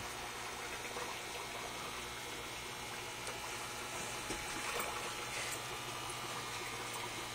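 Running aquarium water trickling and splashing steadily, over a steady low hum.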